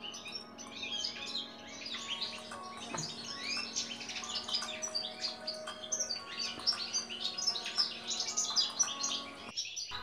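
European goldfinch singing: a fast, continuous twittering of high chirps and trills. The sound cuts off abruptly just before the end.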